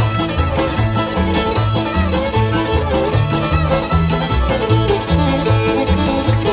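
Old-time string band playing an instrumental tune: fiddle lead over banjo and guitar, with a bass line alternating between low notes in a steady rhythm.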